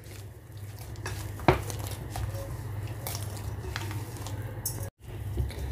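Soft dough being kneaded and folded by hand in a ceramic bowl: faint handling noise with a few sharp clicks against the bowl, the loudest about a second and a half in, over a low steady hum. The sound cuts out briefly near the end.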